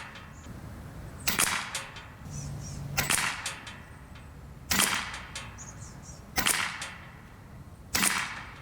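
Hatsan Neutron Star PCP air rifle firing five shots, one about every 1.7 seconds, each a sharp crack with a short ring after it.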